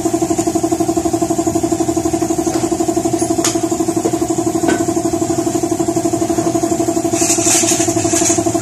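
Workshop air compressor running steadily, a pitched mechanical hum with a fast, even pulsing beat. Near the end a short burst of hiss sounds over it.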